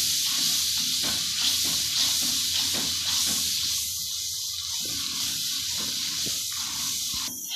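Onion, tomato and spice masala frying in oil in a steel pan, sizzling with a steady hiss while a wooden spatula stirs it. This is the bhuno stage, with splashes of water added to the frying masala.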